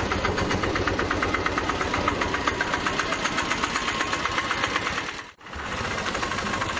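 Auto-rickshaw engine running with a rapid, even beat. The sound drops out briefly about five seconds in, then the engine carries on.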